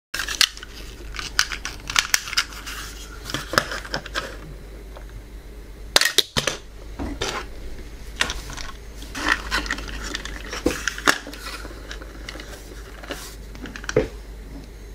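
Hard plastic toy pieces, a car launcher, ramp and ring, being handled and set down on a table: irregular clicks and knocks, with a louder cluster about six seconds in.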